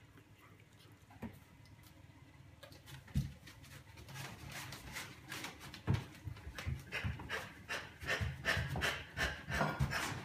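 Plastic ketchup bottle being shaken and squeezed over a tray of chips in quick repeated strokes, growing louder over the last six seconds, after a quiet start broken by a single thump.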